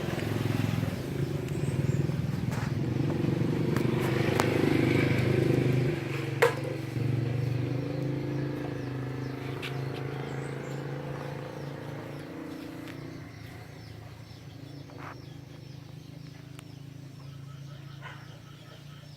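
A motor engine running with a steady low hum, loudest in the first six seconds and then gradually fading away. There is a sharp click about six seconds in.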